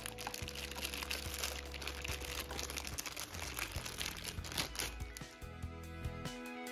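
Clear plastic bag crinkling as a phone charging cradle sealed inside it is handled, over background music; the crinkling stops about five seconds in.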